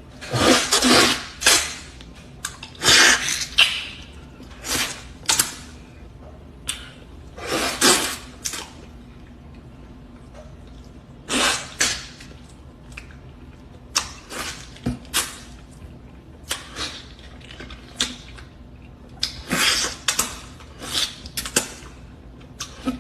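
Wet slurping and sucking of a juicy mango as it is eaten, in irregular short bursts with pauses between.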